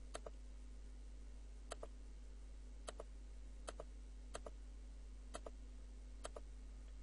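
Computer mouse button clicking, about seven faint clicks spaced roughly a second apart, each a quick press-and-release pair, as layer buttons are clicked one at a time.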